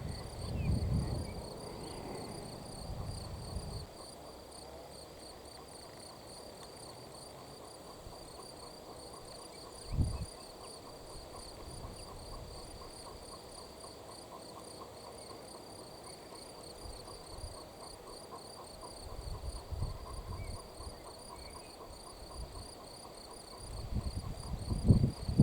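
Crickets chirping: a high, evenly pulsing trill that keeps on without a break. Low thumps and rumbles come and go over it, the loudest a single thump about ten seconds in.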